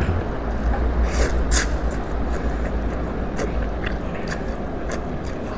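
Person eating beef noodles close to the microphone: a handful of short, sharp eating sounds over a steady low rumble.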